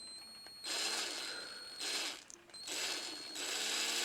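A small drill spinning a tiny diecast axle in three short, slow stop-start runs, a whirring with a faint high whine. It is screwing a wheel rim onto the axle.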